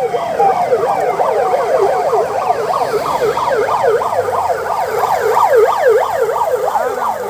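Electronic vehicle sirens on a passing motorcade, sounding in quick rising-and-falling yelps several times a second, with more than one siren overlapping.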